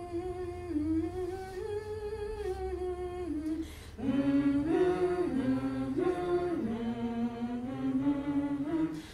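Unaccompanied voices singing. One voice carries a slow melody at first, then about four seconds in several more voices join and sing together in harmony.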